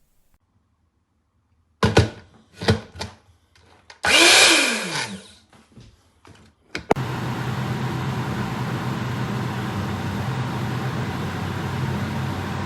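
Breville Blend Active personal blender: a few sharp clicks and knocks of the bottle and base, then a short burst of the motor that winds down with a falling pitch. About seven seconds in, the 350 W motor starts and runs steadily, blending.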